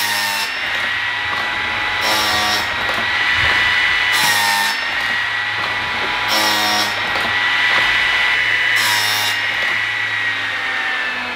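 A Dinasaw T-Rex automatic chainsaw chain sharpener is running, with a steady high whine from its grinding-wheel motor. About every two seconds there is a louder grinding burst as the wheel comes down on the next cutter tooth of the chain.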